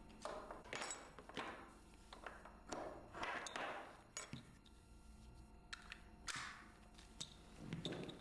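Faint clicks, knocks and brief scraping of wheelchair tie-down straps being unfastened and their metal fittings unclipped from the vehicle's floor rail, in a scattering of separate handling sounds.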